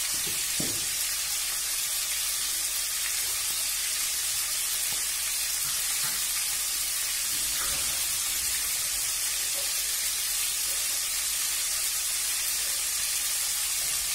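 Marinated chicken drumsticks frying in shallow oil in a nonstick wok, giving a steady, high hissing sizzle.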